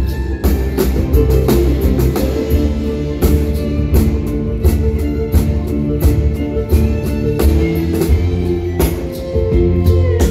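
Live band playing with a symphony orchestra: a drum beat with regular hits under mandolin and held orchestral notes.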